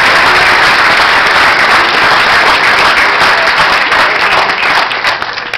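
Audience applauding, dying away near the end to a few last separate claps.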